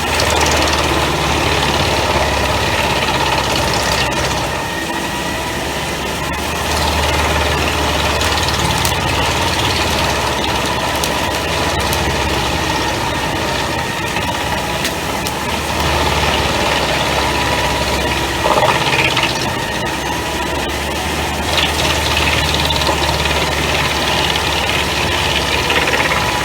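A Pezzolato PTH 1000/1000 G drum wood chipper running off the PTO of a New Holland tractor, its engine and spinning drum making a steady, loud machine drone. The low hum swells and eases every several seconds, with a few short louder bursts.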